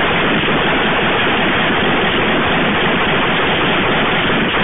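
Loud, steady static hiss like white noise, even and without any pattern, drowning out all other sound.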